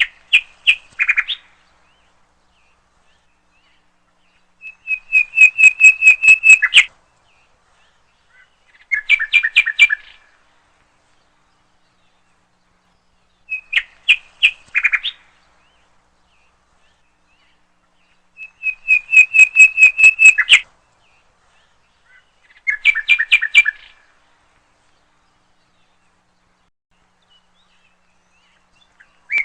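A songbird singing: six short phrases, each a quick run of repeated notes, a few seconds apart, with silence between them.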